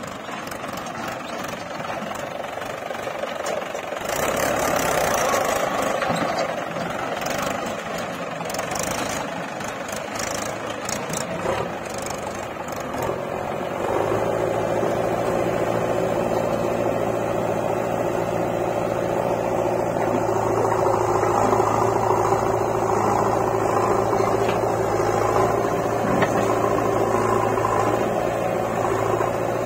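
Diesel engines of a farm tractor and a JCB 3DX backhoe loader running. In the first half there is a run of knocks and rattles as the tractor drives its trolley over rough ground. About halfway through it changes to a steady, even engine drone of the machines idling.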